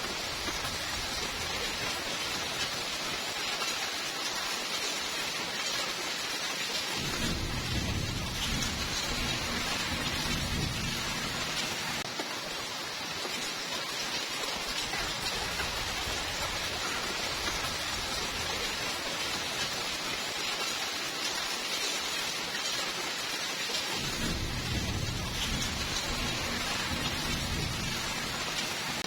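Steady rain falling, joined twice by a low rumble of thunder lasting about five seconds each: once about seven seconds in and again near the end.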